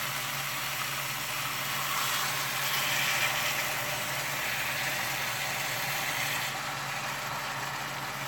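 Water poured from a plastic measuring cup into a stovetop pot of seasoned chicken, swelling for a few seconds in the middle, over a steady low hum. The water goes into the thin-bottomed pan so the vegetables and seasonings don't scorch and the chicken steams from below.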